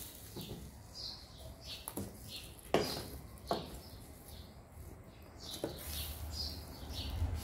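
Small birds chirping now and then in short calls. Two sharp clicks come a little under three seconds in, under a second apart, and a low rumble rises near the end.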